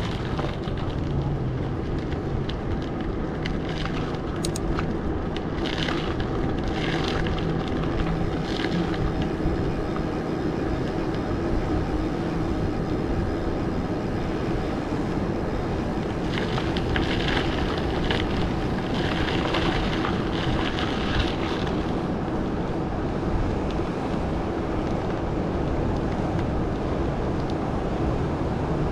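Steady rumble of a moving mountain bike ride: wind on the microphone and tyre and road noise, with a few brief hissing patches.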